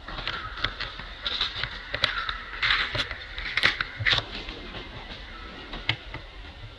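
Rustling and crackling of leaves and twigs with scattered sharp clicks, heaviest around the middle, over a low steady rumble.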